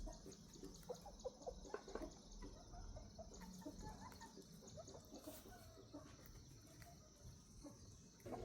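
Faint clucking of chickens: a run of short, soft calls, thickest in the first few seconds, over a steady faint high tone.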